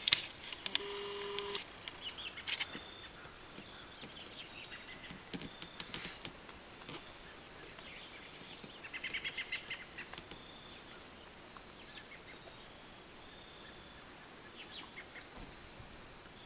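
Birds calling in woodland: scattered short high whistles and chirps, with a quick chattering series about nine seconds in. A sharp knock right at the start is the loudest sound.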